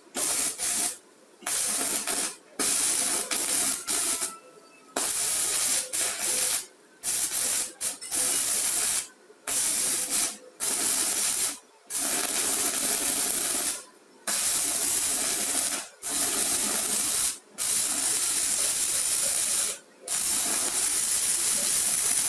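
Stick-welding arc from a Mini 250 inverter stick welder burning a 2.5 mm electrode on a rusted steel plate. It makes a steady crackling hiss that cuts out briefly about a dozen times, each time starting again as the arc is struck anew.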